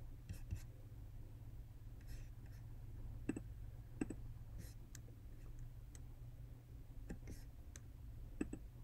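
About eight faint, sharp clicks at irregular intervals from clicking a computer's pointing device, over a faint steady low hum.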